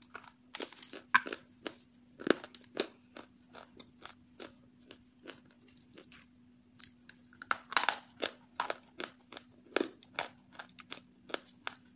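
Dry, half-roasted grey clay crunching and crumbling in sharp, irregular cracks, bunched about two seconds in and again around eight seconds in. A steady high whine runs underneath.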